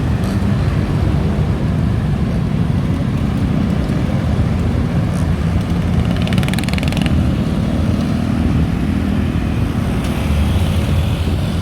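City road traffic heard from a moving bicycle, a steady low rumble of passing cars and motorbikes. About six seconds in comes a short run of rapid fine ticking.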